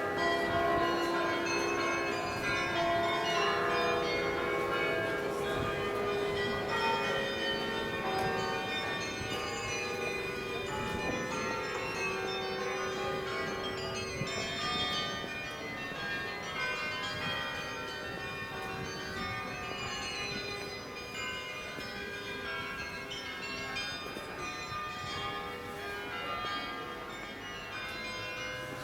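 Carillon bells of St Peter's Church in Leuven playing a tune: many ringing bell notes overlapping and succeeding one another, growing a little quieter toward the end.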